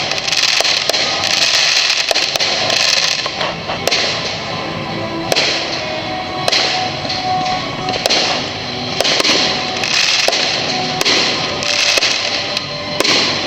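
Fireworks display: a rapid string of sharp bangs from bursting shells, with dense crackling and fizzing in between.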